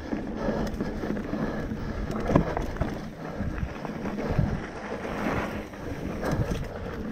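Mountain bike being ridden along a dirt trail: a steady rumble of tyres and wind buffeting the microphone, with frequent knocks and rattles from the bike over bumps, the sharpest about two and a half seconds in.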